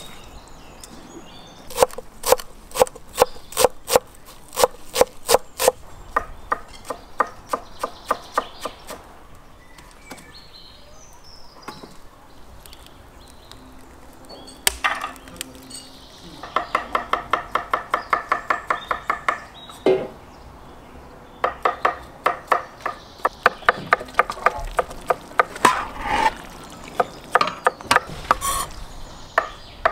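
Knife chopping on a wooden cutting board: spaced single chops at about two a second, then runs of fast, rapid chopping.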